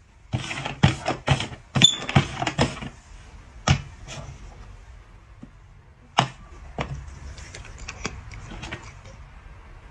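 Hard cups knocking and tapping on a board: a quick run of sharp knocks in the first three seconds, then a few single taps as a golden retriever paws at a cup.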